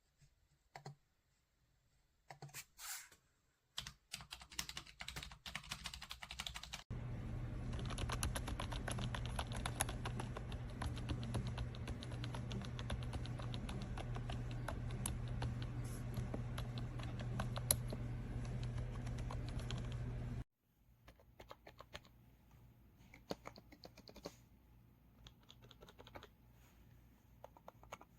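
Typing on a RaceGT wireless keyboard with round typewriter-style keycaps, its keys clicking. The clicks start scattered, come in a fast continuous run from about seven seconds in to about twenty, then thin out again.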